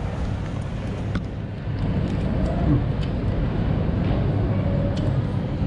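Steady low rumble of indoor background noise with faint, distant voices, and a few light clicks and paper rustles from a sandwich wrapper being handled.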